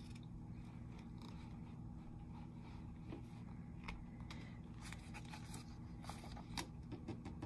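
Faint handling of a paperback picture book: light rustles, scrapes and small clicks of paper as a hand turns a page, a few stronger ones near the end, over a low steady hum.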